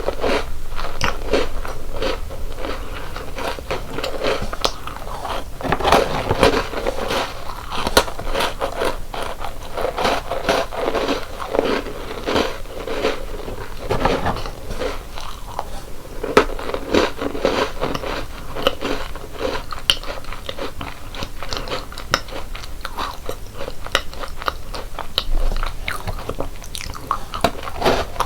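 Close-miked biting and chewing of crunchy chocolate-coated biscuit snacks: a dense, continuous run of crisp crunches as each piece is bitten and chewed.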